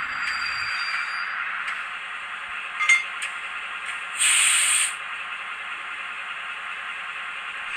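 Sound decoder of a Piko HO-scale BB 60000 diesel locomotive model playing a steady engine idle through its small speaker. As it couples to a wagon there is a sharp clink about three seconds in, then about a second later a half-second burst of compressed-air hiss.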